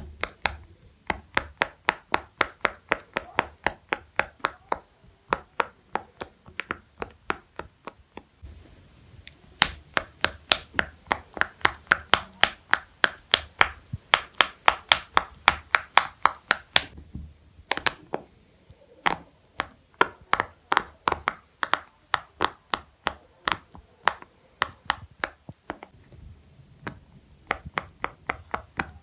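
Silicone pop-it fidget toy bubbles being pressed one after another, each giving a sharp little pop, about four or five a second, with a few short pauses between rows.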